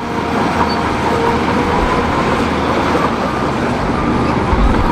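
Toy bulldozer being pushed along, making a steady rolling, scraping noise.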